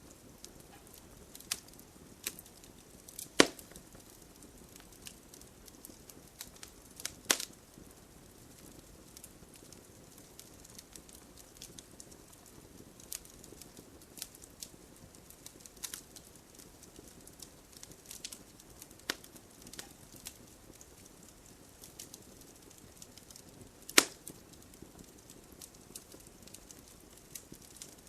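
Wood fire crackling in a fireplace: scattered small snaps and ticks over a low hiss, with three sharp, loud pops spread through.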